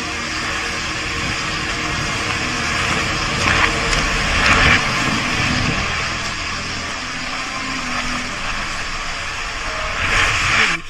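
Steady storm noise of heavy rain and wind, swelling briefly about four seconds in and again near the end.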